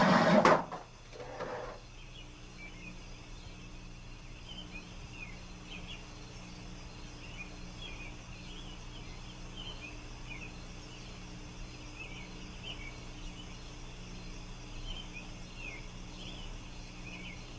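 Many short bird chirps, scattered irregularly, over a steady low hum of background ambience. A brief loud noise comes right at the start.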